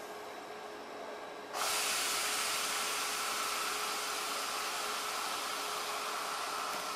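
A loud hiss of rushing air cuts in suddenly about a second and a half in and then holds steady, with a faint high whine running through it.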